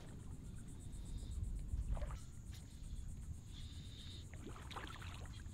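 Quiet open-air ambience on a small boat: a steady low wind rumble with a few light knocks and scrapes, and a faint high tone held briefly twice.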